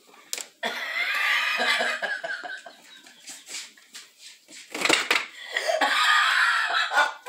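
Rummaging through a refrigerator's shelves and door bins: a few sharp knocks and clatters of items being moved, with a person laughing.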